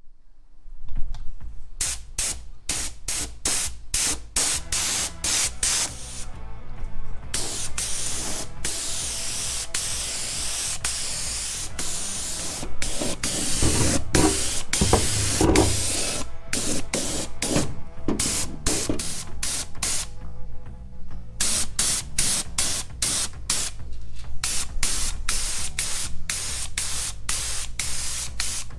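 Welder stitch-welding a sheet-metal patch panel: many short crackling bursts of arc one after another, with a couple of longer runs in the middle, over background music.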